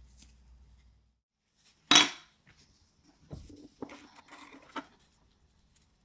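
One sharp metallic clack about two seconds in, then a run of smaller clicks and scraping as the small metal parts of a mini Zippo lighter are handled.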